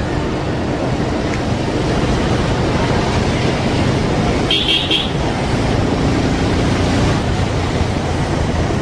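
Steady road traffic noise, with a short high-pitched tone about four and a half seconds in.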